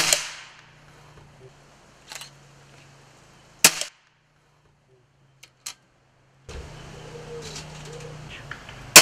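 Pre-charged pneumatic air rifle being fired: a sharp crack at the start, another about three and a half seconds in, and a third at the end, with a fainter crack and a couple of small clicks in between.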